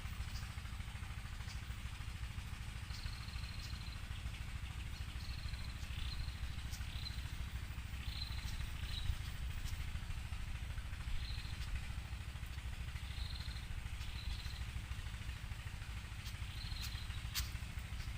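A small bird giving short, high chirps, repeated irregularly about a dozen times, some ending in a quick downward flick, over a steady low rumble.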